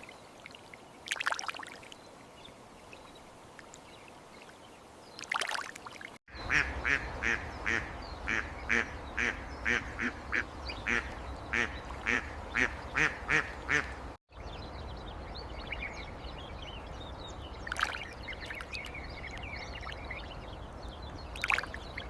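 A duck quacking in a long, even series of about two to three quacks a second, between two short dropouts in the sound. Before and after, a few single calls stand out over a steady hiss.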